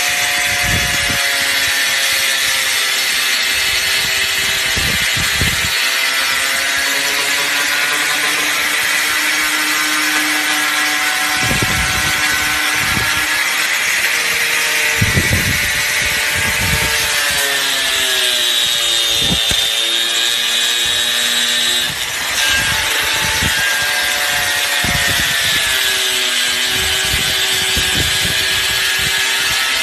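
Angle grinder with a thin cut-off disc running continuously, cutting into painted wooden baseboard moulding: a steady motor whine with gritty scraping, its pitch sagging now and then as the wood is pressed into the disc.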